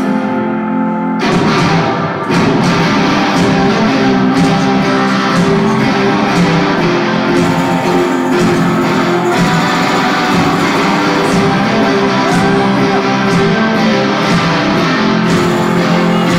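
Live rock band playing an instrumental passage led by a loud electric guitar, the full band coming in about a second in.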